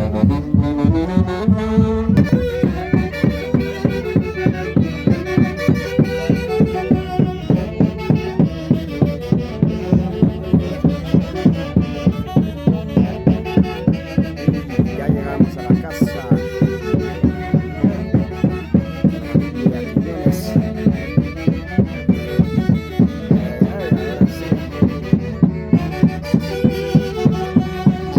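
A live Andean folk orchestra playing dance music: wind instruments carry the melody over a steady, driving beat.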